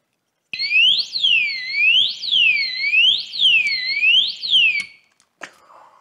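The REAPP 110 dB alarm disc lock's siren, set off by moving the armed lock: a loud, high electronic wail sweeping up and down about once a second, four times, then cutting off shortly before the end.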